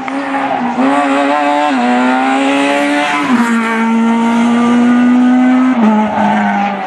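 Rally car engine running hard under acceleration, revs climbing and then dropping sharply with quick upshifts about two and three seconds in, held high for a couple of seconds, then dropping again near the end.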